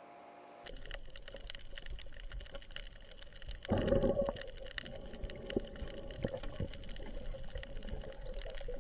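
Underwater sound on a shallow coral reef, heard through the camera: a steady crackle of many small clicks over a faint hiss, with a louder gurgling rush about four seconds in.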